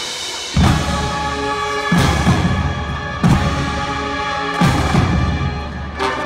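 Marching display band playing held brass chords, punctuated by four heavy drum hits about one every second and a half.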